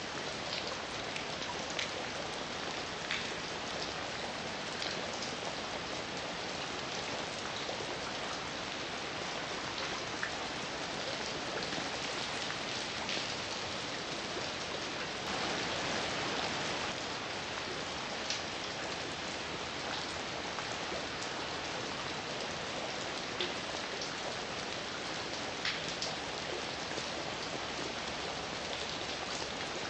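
Steady heavy rain falling, a dense even hiss with scattered sharper drop hits, briefly heavier about halfway through.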